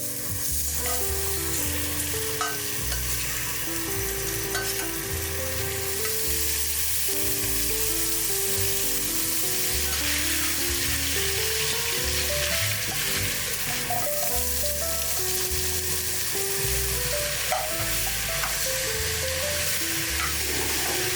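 Food sizzling steadily as it fries in a hot pan, with stirring, under background music with a melody and bass line.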